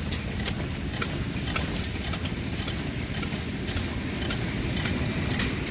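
Small ca. 1900 Parsell & Weed side-shaft gasoline engine running smoothly and quietly, a steady low rumble with light clicks a few times a second.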